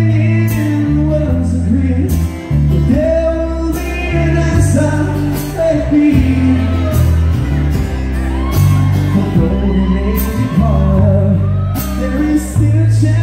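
Live band playing a song: singing over strummed acoustic guitar, an electric bass line moving note to note, and drums with regular cymbal hits, echoing in a large tent.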